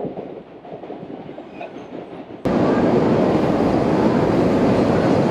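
Chicago 'L' train noise: a rumble inside the car as it runs, then, after a sudden cut about two and a half seconds in, a much louder, steady train noise with a train at the station platform.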